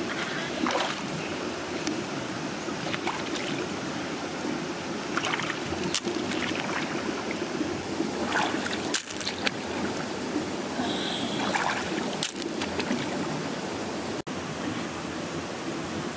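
Steady rush of flowing river water, with short splashes now and then from a person wading and swimming in it.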